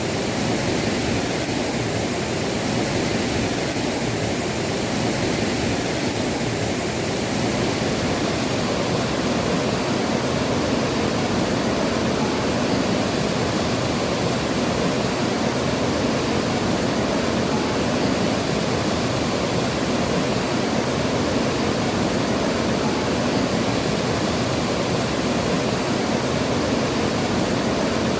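Waterfall pouring steadily: a loud, constant rush of falling water.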